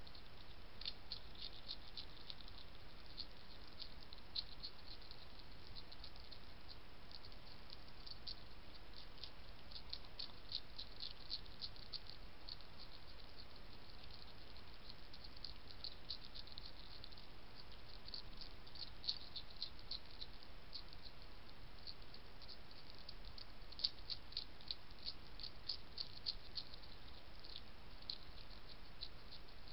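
European hedgehog crunching dry food pellets from a plate: irregular runs of small crisp clicks, thickest in several bursts, over a steady faint hiss.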